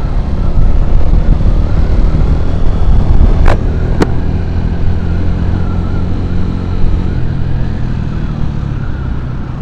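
Motorcycle engine running steadily while ridden at road speed, heard from the rider's seat with road noise. Two short clicks about half a second apart come about three and a half seconds in.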